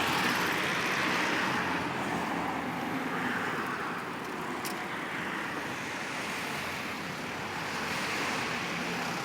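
Road traffic passing, a steady rushing noise that swells slightly at the start and again near the end, picked up by a phone's microphone.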